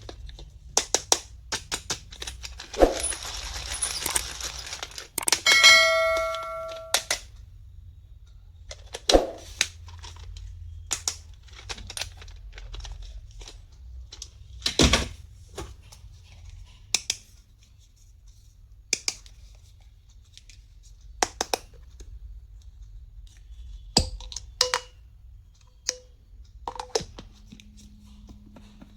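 Small plastic stationery items being handled: a string of separate clicks and taps, a rustle of packaging a few seconds in, and a short ringing tone just after it.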